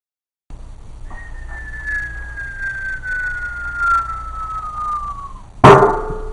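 Cartoon falling-whistle sound effect: one long whistle gliding slowly downward in pitch, cut off by a loud crash about five and a half seconds in, with a brief ringing tail.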